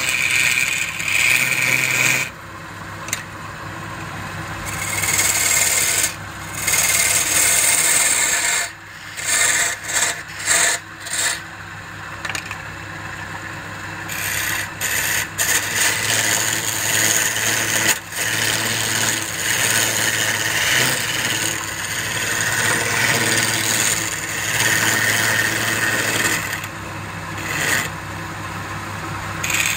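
Wood lathe running with a steady motor hum while a hand-held turning tool cuts into the spinning wooden blank. The cutting is a rough scraping hiss that swells and drops off again and again as the tool is pressed in and eased back, with a few short breaks in the cutting midway.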